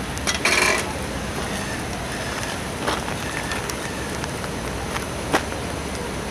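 Steady low rumble of a heavy-haul transport rig (MAN truck with multi-axle modular trailer) moving slowly, with a brief noisy burst about half a second in and a couple of sharp clicks later.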